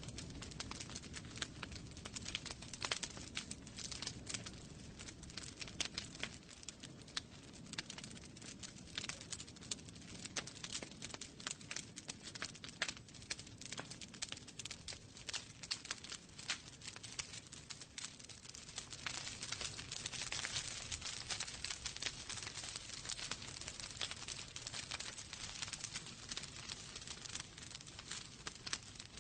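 Fire in a fireplace crackling: a dense, irregular stream of sharp snaps and pops over a soft steady rush of flame, growing hissier and busier about two-thirds of the way in.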